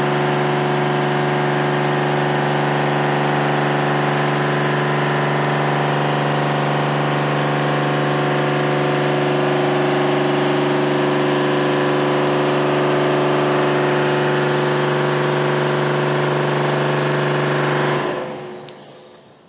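Barn misting cooling system running: a steady, even machine hum with a hiss over it, fading out near the end.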